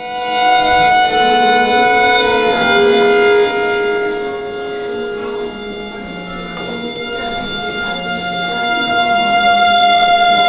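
A quartet playing long, held tones, several pitches sounding together and shifting only now and then. It swells in over the first second, eases off in the middle and grows louder again near the end.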